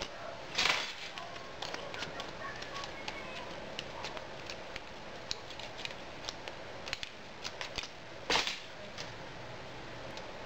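Aluminium foil being folded and creased by hand and trimmed with scissors: scattered small clicks and crinkles, with two louder crinkling bursts, one about a second in and one about eight seconds in.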